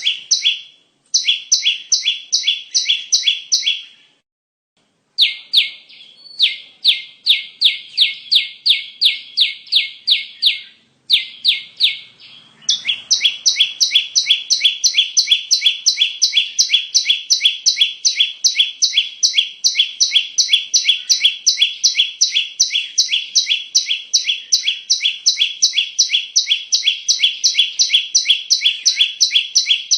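Prinia (perenjak) calling, a lure recording: a fast run of sharp repeated chirping notes, about four a second. In the first part the notes come in phrases with short breaks; about halfway through they become one unbroken run.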